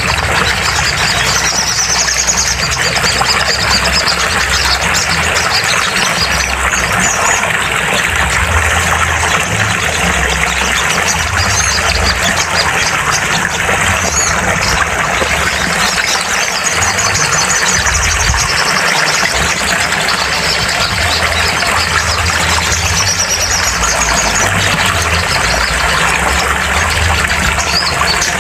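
High, fast songbird trills and chirps repeating every few seconds over a dense, steady hiss and a low rumble; a bird-therapy recording played to make a caged sogon sing.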